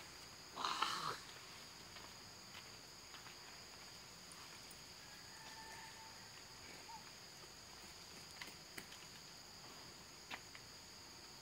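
Steady high-pitched drone of insects. A brief, louder scratchy burst comes about half a second in, and there are a few faint clicks later.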